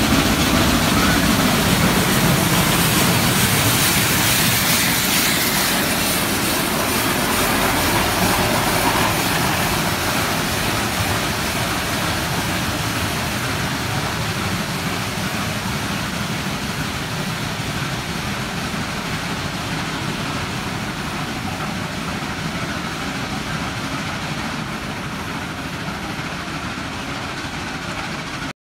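Shay geared steam locomotive working its train past, with exhaust chuffing and the rumble of the running gear and cars. The sound slowly fades as the locomotive pulls away, then cuts off suddenly near the end.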